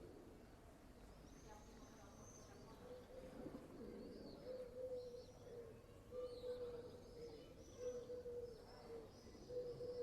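A dove cooing faintly in a run of short, repeated low notes from about three seconds in, with small birds chirping high above it.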